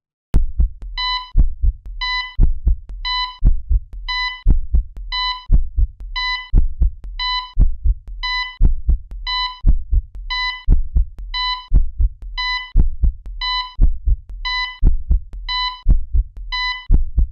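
Heartbeat sound effect: deep, steady heartbeat thumps, with a short high beep like a hospital heart monitor's about once a second.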